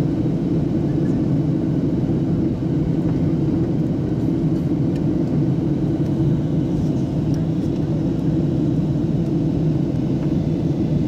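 Steady low rumble inside a jet airliner's cabin in flight, the engine and airflow noise heard at a window seat beside the engine.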